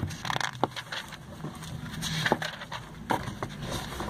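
Glossy paper pages of a printed catalogue being turned by hand: a few short, sharp rustles and flicks as pages are lifted and flipped, over a low steady hum.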